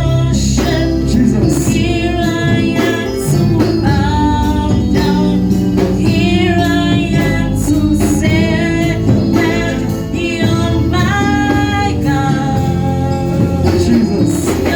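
Gospel worship song: voices singing over instrumental accompaniment.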